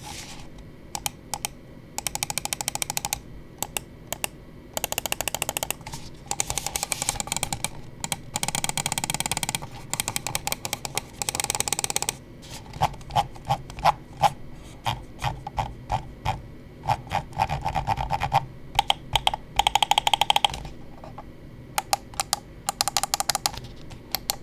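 Clicking test of a Madlions Mad G wireless gaming mouse: its buttons are clicked in fast runs of about a second each and in single clicks, with short pauses between the runs.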